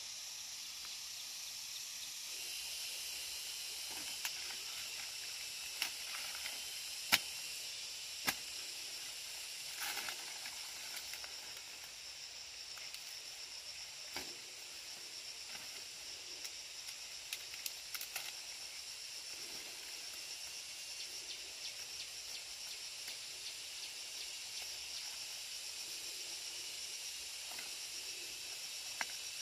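Steady high-pitched hiss of an insect chorus, with a few scattered sharp snaps and knocks as pineapples are cut with a machete and the stiff leaves are pushed aside, the loudest about seven seconds in.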